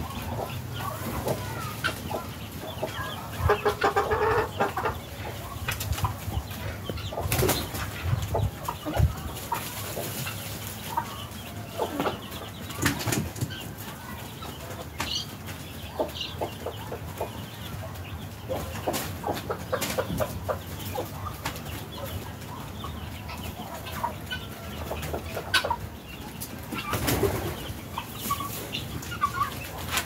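Domestic helmeted guineafowl flapping their wings as they fly up onto and over a fence, with scattered calls and clucks of farmyard fowl. The loudest bouts come about four seconds in and again near the end.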